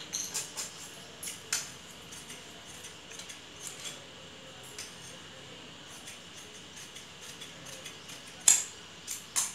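Large steel tailor's shears cutting through fabric: a series of short, sharp snips and blade clicks, the loudest ones near the end.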